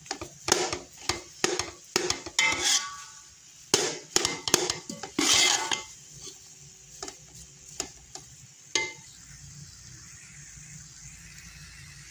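Metal spoon scraping and knocking against a steel pot while stirring crumbly semolina halwa: a quick run of scrapes and clinks for about six seconds, then a few scattered knocks that die away into faint steady background by about nine seconds in.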